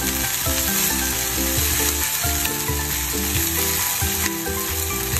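Chopped mixed vegetables sizzling in a nonstick sauté pan over a high-medium gas flame, stirred with a silicone spatula.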